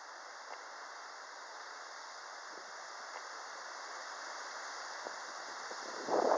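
Typhoon wind rushing through broadleaf trees, a steady leafy rush that slowly builds, with a gust buffeting the microphone near the end.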